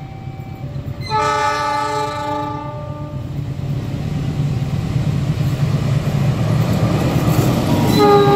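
Diesel locomotive sounding its multi-tone horn in one blast of about two seconds. The rumble of the engine and wheels on the rails then grows steadily louder as the train approaches, and a second horn blast starts near the end.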